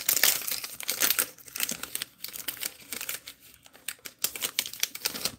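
Paper wrapper of a Topps Heritage baseball card pack being torn and peeled off the cards by hand: dense crinkling and tearing, loudest in the first second or so, then thinning to scattered crackles.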